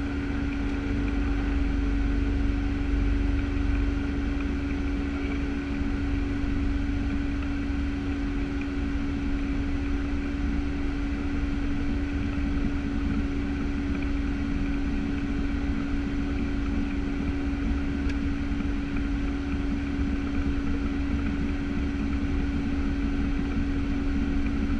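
Piper Cheyenne II's twin Pratt & Whitney PT6A turboprops and propellers heard inside the cockpit as a steady drone with a constant low hum tone, as the aircraft rolls along the runway after landing.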